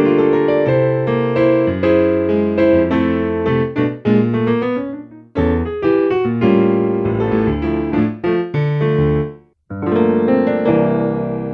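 Kurzweil PC4 stage keyboard playing a piano-type sound, with chords and a moving line of notes. The playing stops briefly about five seconds in and again just before the last couple of seconds.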